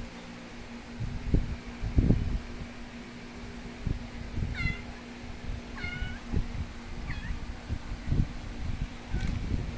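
Kitten mewing: four short, high-pitched mews from about halfway through, over low thumps and bumps, the loudest about two seconds in.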